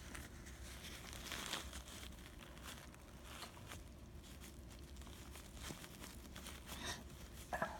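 Faint rustling and crinkling of a paper tissue being handled and dabbed against the ear, in scattered soft bursts, with a brief pitched sound near the end.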